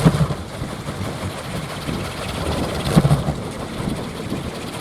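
Teak-wood kolecer (Sundanese wind propeller) spinning in strong wind, giving a steady low whirring drone that swells louder near the start and again about three seconds in.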